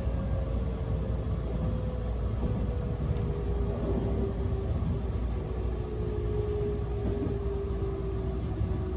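Electric train running along the line: a steady rumble of wheels on rail, with a whine that slowly falls in pitch as the train slows.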